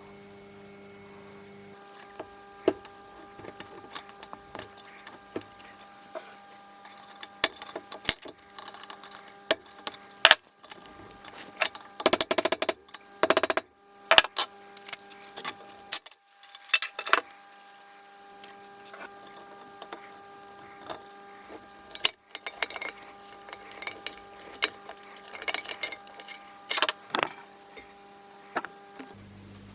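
Metal engine parts and hand tools clinking, knocking and rattling during a Honda CB450 engine teardown, with a longer dense rattle about twelve seconds in.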